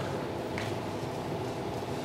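Steady room noise: a low hum and hiss with no speech, and a faint click about half a second in.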